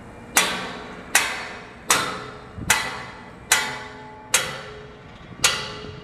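Seven sharp hammer blows on steel, evenly spaced at a little under one a second. Each blow rings briefly and dies away.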